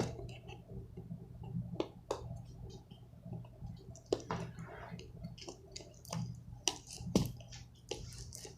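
Cardboard box being worked open by hand at its packing tape: scattered small clicks, scrapes and crinkles, a few sharper ones, over a low steady hum.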